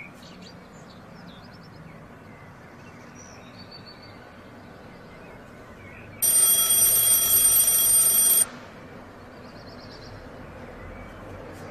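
An alarm clock rings loudly and steadily for about two seconds, starting about six seconds in and cutting off suddenly. Before and after it there is only a quiet room background.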